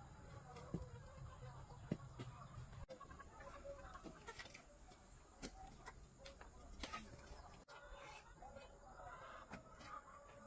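Chickens clucking faintly, with scattered light clicks and taps.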